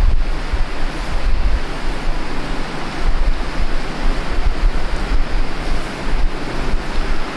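Steady rushing noise with an irregular low rumble underneath: air buffeting the microphone.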